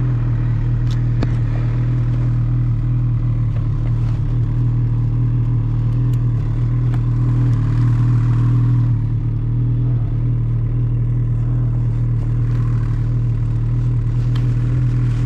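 Ski-Doo 850 Summit snowmobile's two-stroke twin engine running steadily at a constant pitch, with a few light clicks.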